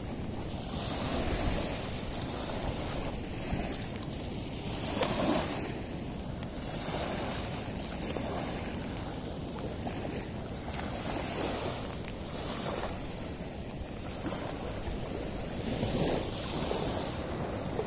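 Small waves washing onto a sandy beach with wind, a steady rushing noise that swells every second or two, with wind buffeting the microphone.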